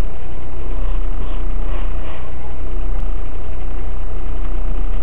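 BMW E36 318is four-cylinder engine idling steadily, heard from inside the cabin with a deep, even hum.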